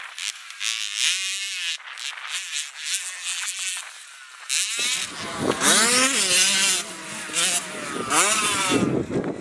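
65cc two-stroke motocross bikes revving hard, the engine pitch rising and falling with each throttle change. For the first half the sound is thin, with no low end. From about five seconds in, a bike is heard close up, fuller and louder, revving up and down.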